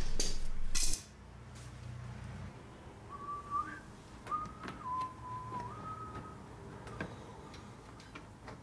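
A person whistling a few held notes of a tune, faint, while small metallic clicks of a bolt and washer being handled sound now and then. A brief louder noise fills the first second.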